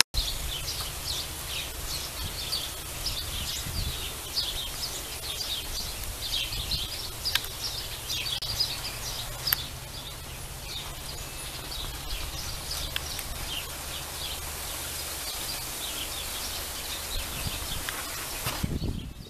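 Outdoor ambience: many small birds chirping over a steady rush of wind with a low rumble. It stops abruptly near the end.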